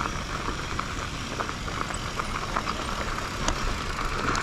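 Mountain bike rolling over a dirt trail, with wind rumbling on the camera microphone and faint scattered clicks.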